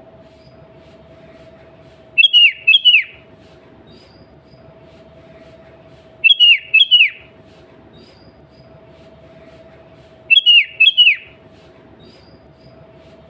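Sooty-headed bulbul (kutilang) singing: three short loud phrases, each of a few quick, sharp notes sliding downward, repeated about every four seconds. Under them is a steady faint hum.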